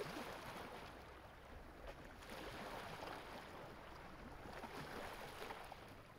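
Soft water lapping and sloshing, with faint small splashes in gentle swells.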